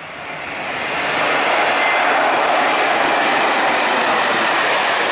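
Jet engines of a twin-engine widebody airliner at takeoff power as it climbs out overhead: a wide rushing engine noise that swells over about the first second, then stays loud and steady.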